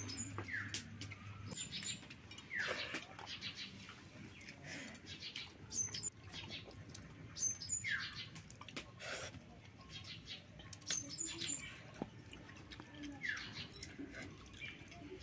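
Birds calling: a quick falling whistled note comes four times, spaced a few seconds apart, among short high chirps. Scattered light clicks and taps run underneath.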